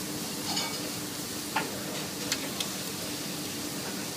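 Filet steaks sizzling steadily on a charcoal grill, with a few sharp metal clicks from tongs turning the meat.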